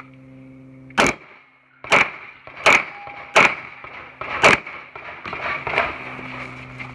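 Glock 17 9mm pistol firing a string of about six shots in an uneven rhythm, roughly one every half second to a second, starting about a second in. The last shot, near the end, is fainter.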